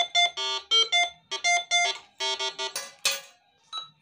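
Minelab Go-Find 60 metal detector beeping in a quick run of short tones of a few different pitches as its coil passes over a metal key, signalling a metal target. A short rustle near three seconds in, one more short beep, then the beeping stops.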